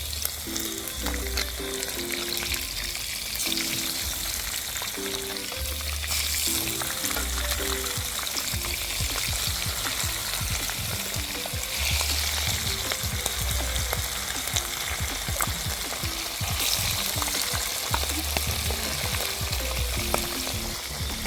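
Bonito pieces frying in hot oil, a steady crackling sizzle, with background music with a bass line playing underneath.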